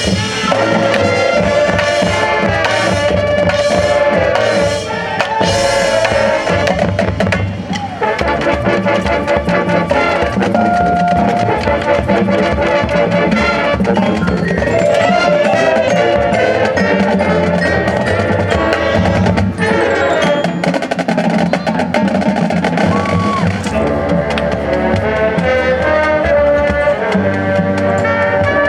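High school marching band playing a Latin-style show: brass melody over a drumline of snare and bass drums and other percussion.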